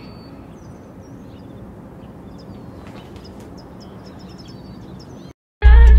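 Outdoor ambience: a steady low hiss with scattered short, high bird chirps. It drops out to silence for a moment near the end, and loud music with a deep bass note cuts in.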